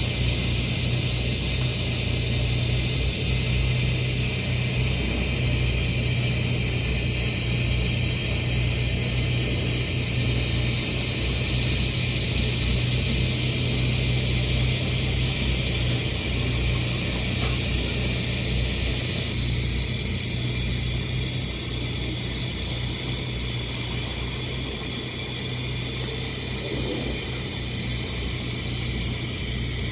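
Arc welding on carbon steel in the horizontal position: a steady arc hiss and crackle over a constant low hum, easing slightly about two-thirds of the way through.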